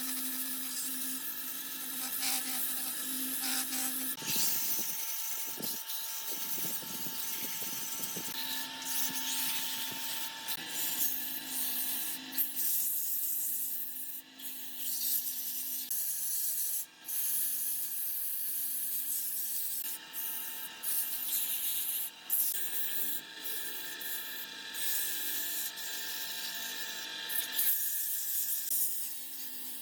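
Wood lathe running with a steady motor hum while the spinning wooden vase blank is worked, giving a hissing rub. The hum and rub break off briefly a few times.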